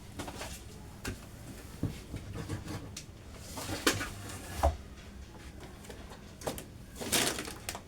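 Grocery packages being handled and set down: scattered light knocks and clicks, with two louder rustles of packaging, one about four seconds in and one near the end.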